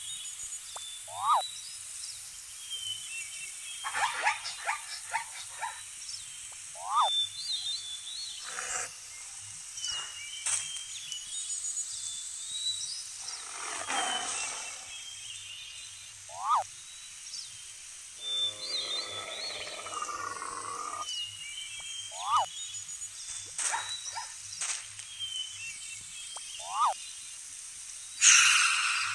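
Animal sound effects over a chirping bird ambience: a tiger's roar about halfway through, then a longer pitched growling call a few seconds later. Short sharp calls break in every few seconds, and a loud burst comes near the end.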